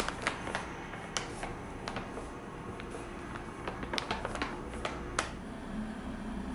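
Bread flour being poured into a glass mixing bowl, with irregular sharp clicks and taps over a soft hiss.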